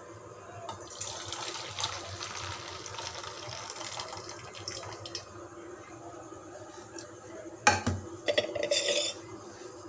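Water being poured into a bowl while mixing dough, a steady splashing hiss in the first few seconds, then sharp knocks and a clatter of a utensil against the bowl near the end.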